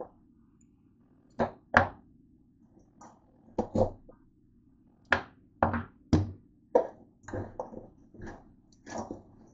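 About a dozen irregular knocks and clacks of kitchenware being handled at the stove and counter.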